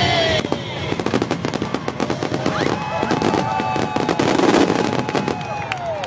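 Dense, rapid barrage of firework bursts and crackling, many sharp pops in quick succession. Show music cuts off about half a second in, just as the barrage begins.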